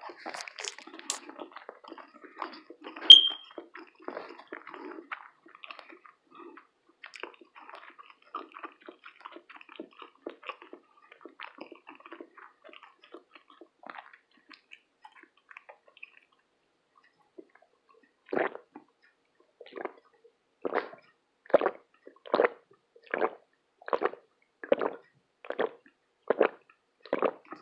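Close-miked mukbang mouth sounds: soft, scattered chewing and smacking with one sharp click that rings briefly about three seconds in, then after a short pause a run of about a dozen evenly spaced wet swallowing sounds, a little under one a second.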